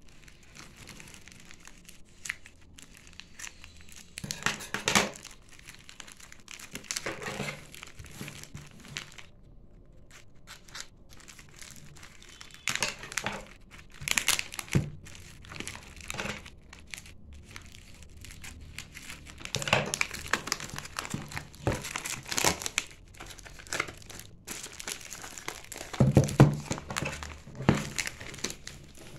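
Clear plastic packaging bag crinkling in irregular bursts as it is handled and pulled open, with quieter pauses between.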